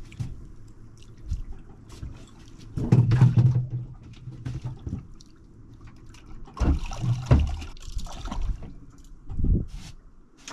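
Water splashing and dripping with irregular knocks and thumps as a freshly caught conger eel is brought aboard and handled in a small boat. The bursts are loudest about three seconds in, again around seven seconds, and briefly near the end.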